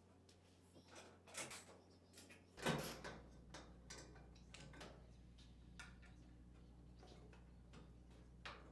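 Faint, scattered clicks and light knocks of a 1/4-inch nut driver taking screws out of a washer's back panel, the loudest knock about three seconds in, over a faint steady low hum.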